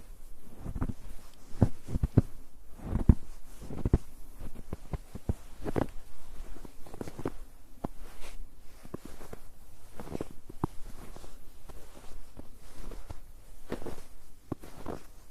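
Footsteps walking on a snow-covered road, steady steps at about one or two a second.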